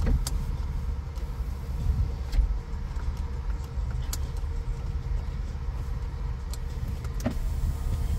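Inside the cabin of a 2004 BMW 330Ci, its straight-six engine idling steadily with the heater blower running on high. There are a few light clicks.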